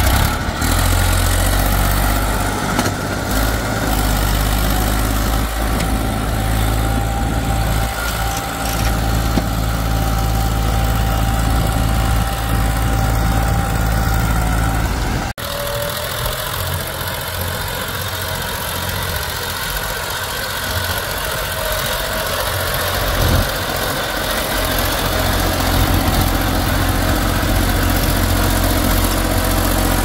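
Massey Ferguson tractor's diesel engine running steadily while hauling a trolley heavily loaded with mud. The sound cuts off abruptly about halfway through and picks up again with the engine running.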